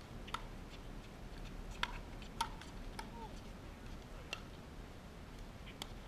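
Pickleball paddles striking a hard plastic ball: about six sharp, short pops at uneven gaps of roughly half a second to a second and a half.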